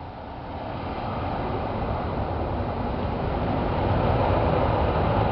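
Jet airliner engine noise, a broad rushing sound with a low rumble, growing steadily louder.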